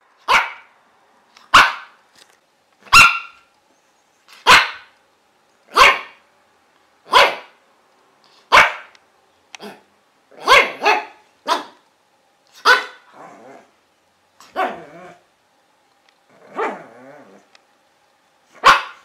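A dog barking: single sharp barks about every second and a half, then quicker, irregular barks with a few longer, lower sounds between them.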